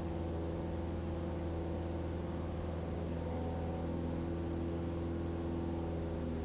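Single-engine Cessna's piston engine and propeller droning steadily at climb power, heard through the intercom audio feed, with a faint steady high whine over it.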